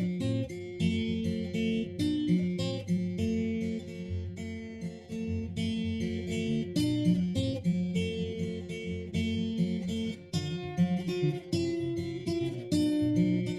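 Background music: an acoustic guitar instrumental, plucked and strummed in a steady rhythm.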